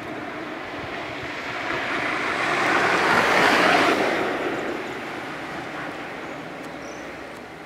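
A vehicle passing by: a broad rushing noise that swells to its loudest about three and a half seconds in, then slowly fades away.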